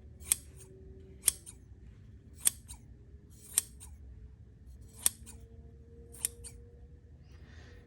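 Freshly sharpened Gingher sewing scissors making test cuts. There are six crisp snips about a second apart, each a sharp closing click with a short slicing rasp, as the blades cut cleanly.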